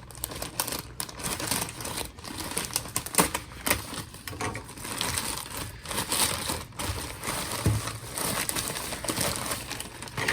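A shipping packet being opened and handled by hand, with irregular crinkling and rustling of its packaging and small clicks.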